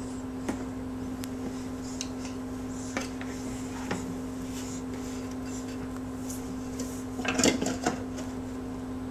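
Plastic sippy cups and bottles knocking and rattling in a kitchen drawer as a baby's hands rummage through them: a few light clicks, then a louder clatter about seven seconds in. A steady low hum runs underneath.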